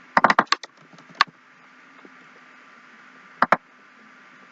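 Computer keyboard keys being typed: a quick run of about six keystrokes, a single keystroke, then two more, over a faint steady electrical hum.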